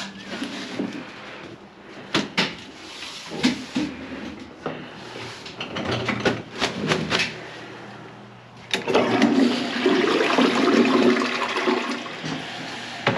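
Scattered knocks and clatters, then a toilet flushing about nine seconds in, with a loud rush of water draining through the bowl that eases off near the end. The flush drains without the gurgling noise; the drain has been snaked and a shifted toilet gasket replaced.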